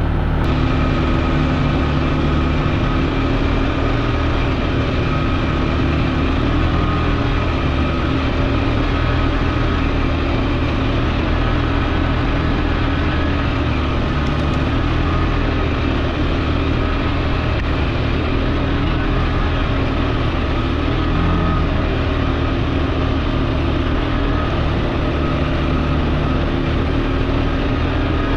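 ATV engine running steadily under way, holding a fairly even speed with small rises and falls in pitch.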